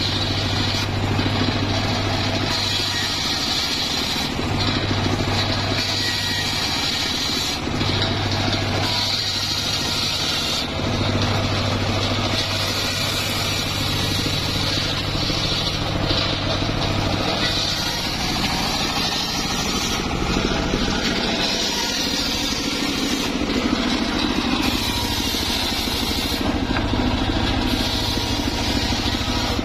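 Homemade engine-driven table circular saw ripping mahogany planks. The engine runs steadily underneath while the blade cuts in a string of short passes, each a second or two of high, hissing saw noise.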